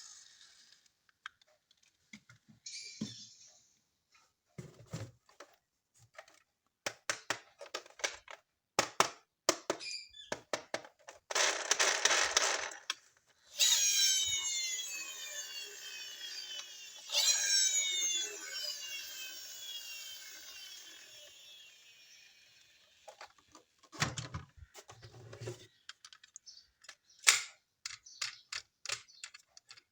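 Plastic toy parts clicking, snapping and knocking as they are handled. Midway a rushing burst is followed by a long electronic toy sound effect of repeated sweeping tones, which restarts once and fades away over several seconds.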